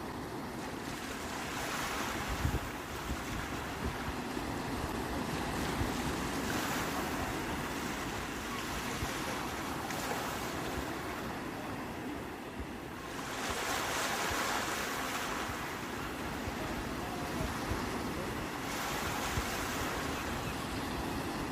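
Sea waves breaking on the shore: a steady wash of surf that swells and eases several times, the strongest surge about two-thirds of the way through. Wind buffets the microphone underneath.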